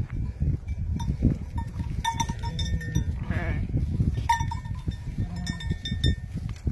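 A sheep bleats once, about three seconds in, over short clinking notes and a steady low rumble.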